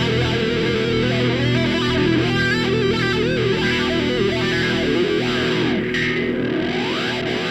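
Background music: a distorted electric guitar plays a wavering, bending melody over a held note.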